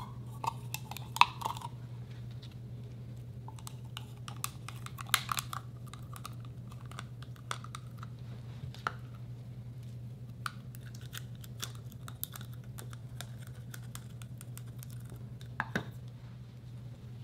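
Slime being pressed and packed by hand into a clear plastic jar: scattered sticky clicks and crackles, densest about a second in, around five seconds and near the end, over a low steady hum.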